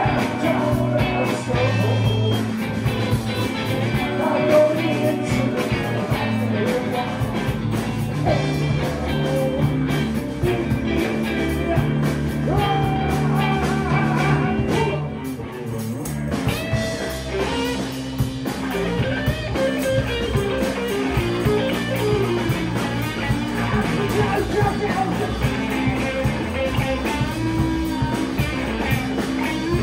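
Live rock band playing: distorted electric guitars through Marshall amplifiers, a drum kit and sung vocals.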